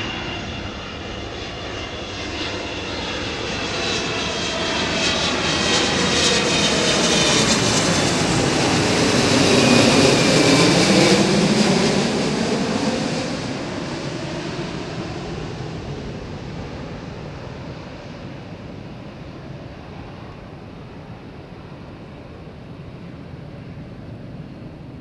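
Twin jet engines of a Boeing 777-300 on final approach, passing low overhead. The high engine whine and roar build steadily to a peak about ten seconds in, then the whine drops in pitch as the airliner passes and the sound fades as it moves away.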